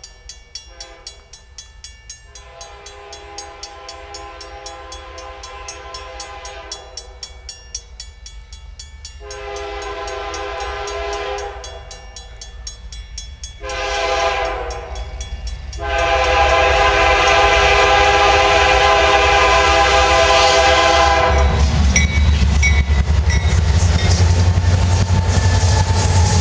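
Diesel freight locomotive's air horn sounding long, long, short, long, the grade-crossing signal, louder with each blast as the train approaches. The horn stops a little past the middle, and the train passes close by with a loud, low rumble of engines and wheels on rail.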